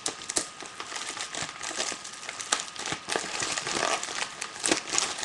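A mailing package crinkling and crackling in irregular bursts as it is handled and cut open with scissors.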